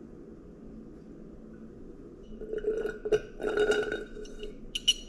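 A person gulping a drink from a glass mason jar, swallowing audibly for about two seconds starting halfway through, then a few sharp clinks of the glass near the end.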